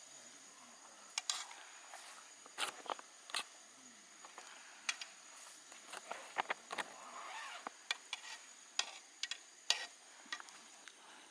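Irregular light clicks and taps of camp cooking utensils against dishes, over a faint steady high-pitched insect drone.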